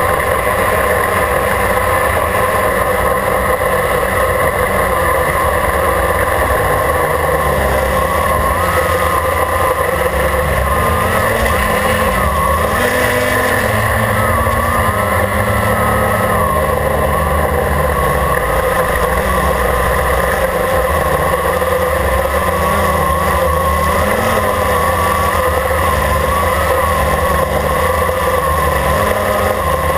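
Quadcopter's electric motors and propellers heard close up from a camera mounted on its frame: a loud, steady buzz whose pitch wavers up and down as the throttle changes in flight.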